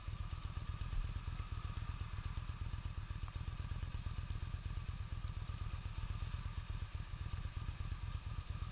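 Yamaha V Star 1300's V-twin engine idling steadily with the bike stopped in traffic, a fast, even low pulsing.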